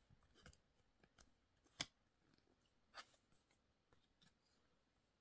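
Faint clicks and taps of photocards being handled and shuffled between the fingers, with a sharper click a little under two seconds in and another at about three seconds.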